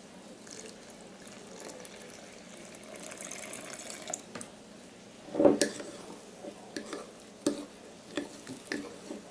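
Warm water pouring from a glass measuring cup into a glass jar of whole wheat flour, swelling to a fuller splash before it stops about four seconds in. A loud knock follows, then a series of short, irregular clinks as the flour and water are stirred in the glass jar.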